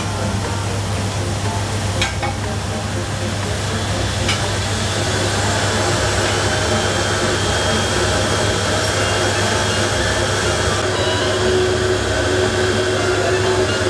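Busy commercial kitchen: a steady, fan-like drone from the cooking line with a few sharp clicks and clatters of pans and utensils in the first few seconds.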